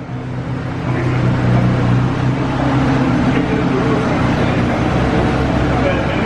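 1971 Jaguar E-Type's V12 engine running at a steady speed, getting a little louder about a second in.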